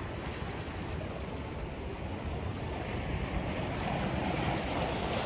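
Sea waves washing and breaking against shoreline rocks, swelling a little a few seconds in, with wind rumbling on the microphone.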